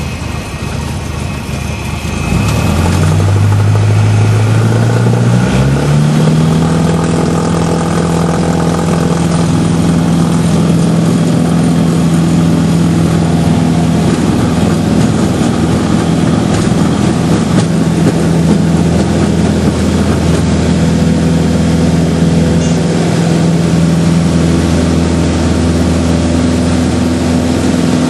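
Cessna 150's Continental O-200 four-cylinder engine and propeller coming up to full power for take-off: the engine note rises steeply about three seconds in, then runs steadily at high power.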